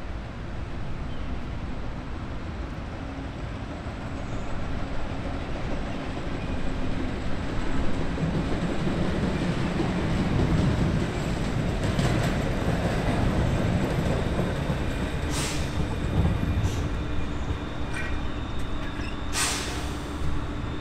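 Pullman-Standard wartime PCC streetcar approaching on the rails, its rumble growing louder as it nears. A steady hum joins in partway through, and there are a few brief, sharp high-pitched sounds from the wheels and track.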